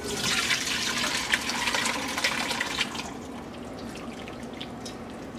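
Braising liquid poured from a pan through a mesh strainer into a stainless steel bowl, splashing steadily, then dying down about three seconds in to faint drips and ticks as it drains.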